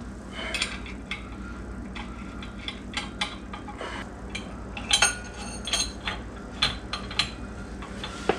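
Scattered metallic clinks and taps of nuts and mounting-bracket hardware being handled and fitted against a truck's rear axle, with a quick cluster of clinks about five seconds in, over a low steady hum.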